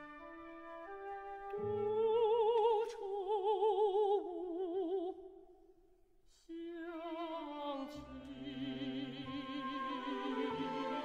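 Mezzo-soprano singing a classical art song in Chinese with wide vibrato over a symphony orchestra. The phrase climbs to held notes, stops for a short pause a little past halfway, and then the voice comes back as low orchestral sound swells beneath it.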